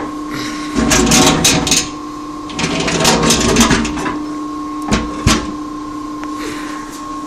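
Spencer Turbine P142-BD 5 HP industrial vacuum running with a steady whine. Over it come two spells of rattling clatter in the first half and two sharp knocks about five seconds in.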